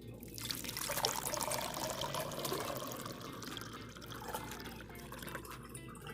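Liquid being poured into a cup or glass, a steady splashing pour that starts just after the beginning, is strongest in the first few seconds and then tapers off.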